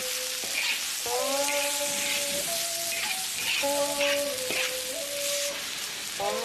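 Cured sausage and fish mint sizzling as they are stir-fried, a steady frying hiss. Background music plays over it, a slow melody of long held notes, each phrase starting with an upward glide.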